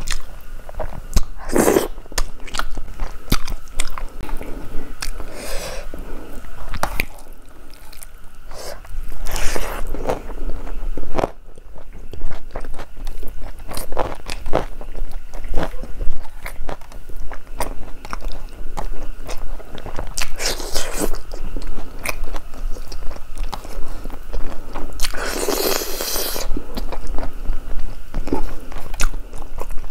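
Close-miked eating of rice and fried fish curry by hand: wet chewing, biting and lip smacks with many small clicks, broken by a few louder rushes of about a second each.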